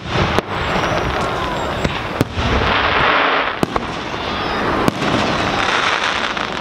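Aerial firework shells bursting in a display: about half a dozen sharp bangs at irregular intervals, over a continuous noisy hiss.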